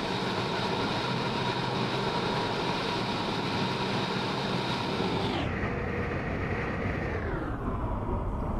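Steady road and tyre noise of a car driving at motorway speed, heard from inside the cabin. The sound turns duller in two steps in the second half, losing its upper range.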